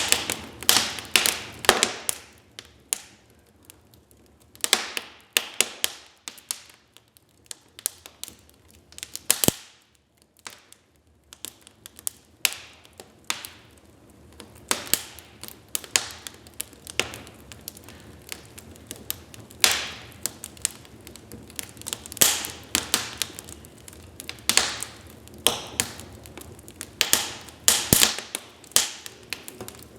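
Wood fire crackling in a fireplace: irregular sharp pops and snaps over a low hiss, thinning to a few scattered pops for several seconds about a third of the way through before picking up again.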